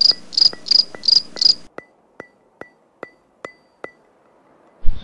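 Cricket chirping in a steady rhythm of about three chirps a second, which cuts off suddenly under two seconds in. A run of sharp ticks follows at a slightly slower pace, then a loud hit just before the end.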